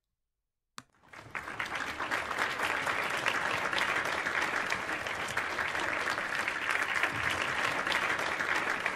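Applause: a crowd clapping steadily. It starts about a second in after a moment of silence and fades out near the end.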